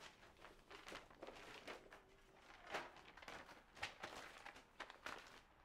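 Faint, scattered rustles and soft clicks from people moving and a paper envelope being handled, with no speech.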